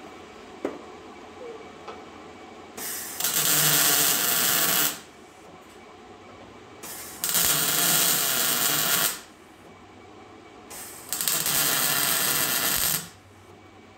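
Wire-feed welder laying three short stitch welds, each about two seconds of steady crackling hiss, fusing a new steel plate onto a truck frame.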